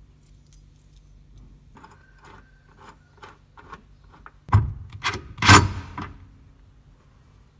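Harness anchor hardware being worked into a car's rear mounting point by hand: light rubbing and scattered small metal clicks, then a run of loud clanks and scrapes about four and a half to six seconds in.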